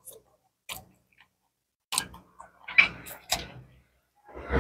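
Close-up mouth sounds of eating by hand: chewing and wet lip smacks on a mouthful of stir-fried water spinach and rice, a few separate clicks, growing denser near the end.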